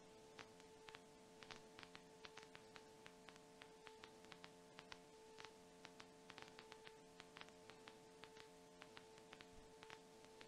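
Near silence: a faint steady electrical hum with scattered faint clicks.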